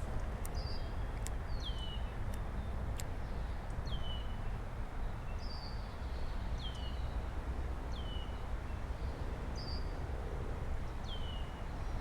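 A small bird repeating a short whistled call that drops in pitch, about once a second, over a steady low outdoor rumble.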